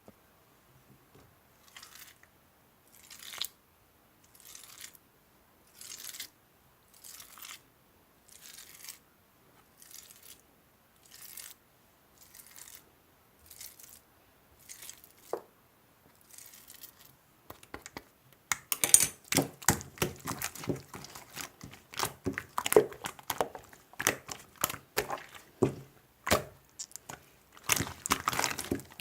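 Slime being squished and stretched by hand: soft, evenly paced squishes about once every second and a bit, then from about two-thirds in a denser, louder run of crackling and popping clicks.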